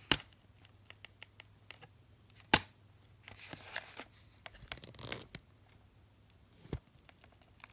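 Handling noise and small clicks from a lever-lock automatic folding knife being worked in the hands, with one sharp, loud click about two and a half seconds in and bits of rustling after it.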